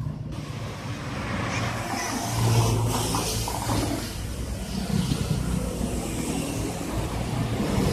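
Roadside traffic, with a large vehicle's engine running, its hum swelling about two and a half seconds in and again near five seconds.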